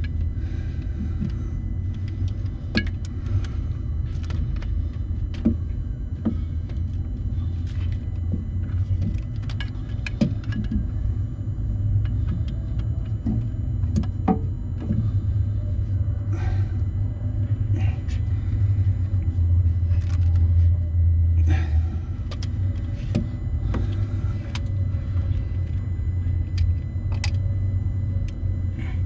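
Skid steer engine running steadily at a low rumble, with frequent short metallic clicks and ticks of a wrench working on the hydraulic pump's neutral adjustment.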